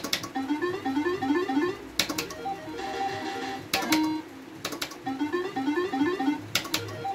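Crazy Monkey video slot machine's electronic sound effects: quick runs of rising beeping notes as wins are counted into the credit, heard twice, broken by a few sharp clicks.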